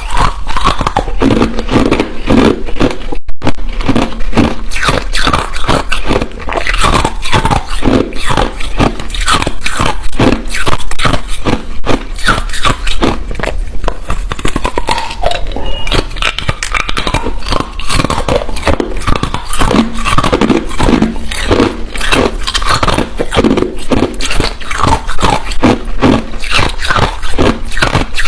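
Ice being bitten and chewed close to the microphone: a dense, unbroken run of sharp crunches and crackles, several a second.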